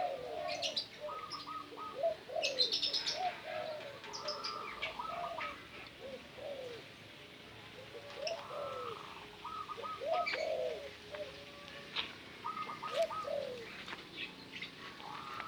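Several caged birds calling together. Short falling coo-like notes recur every second or two, mixed with quick runs of three or four higher notes and a few high, sharp chirps.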